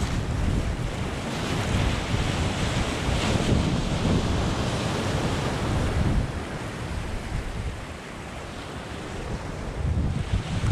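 Sea waves breaking and washing up a pebble beach, with wind buffeting the microphone. The surf eases for a few seconds past the middle and surges again near the end.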